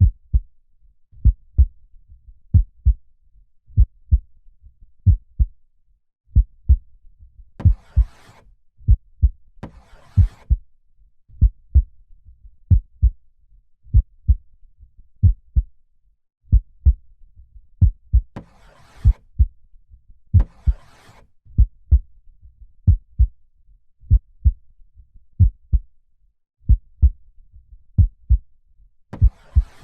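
Human heartbeat, low thumps in lub-dub pairs repeating steadily. Slow breaths in and out are heard as soft hisses in three pairs, about eleven seconds apart.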